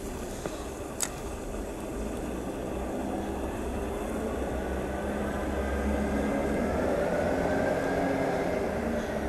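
Distant engine drone of a passing vehicle, swelling slowly over several seconds and peaking near the end, over a steady low rumble. A single sharp click about a second in.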